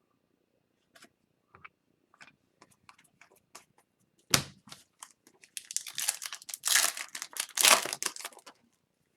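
Scattered light clicks of cards being handled, then a sharp crack about four seconds in and several seconds of crinkling and tearing as an Upper Deck hockey card pack's plastic foil wrapper is ripped open.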